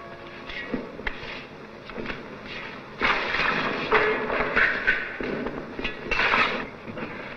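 Shovels digging into and scraping through earth, a series of rough scrapes, the longest about three seconds in and again around six seconds.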